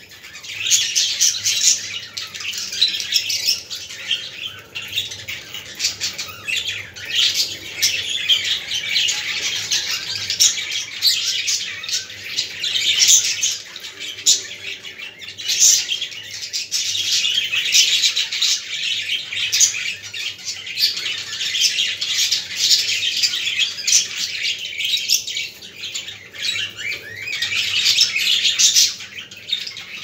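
Caged budgerigars chattering: a continuous stream of quick, high chirps and squawks.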